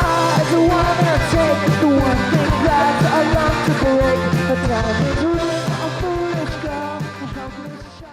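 Rock music with a singing voice over a steady beat, fading out near the end.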